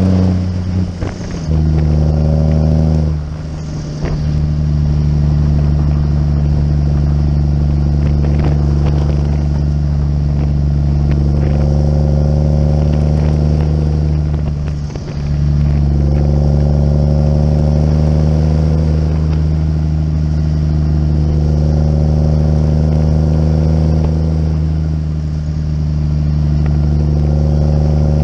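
Diesel engine of a muck cart running under load as it drives along the road. The engine note dips briefly as gears change about a second in, around four seconds in and about fifteen seconds in, and a higher whine climbs with speed after each change.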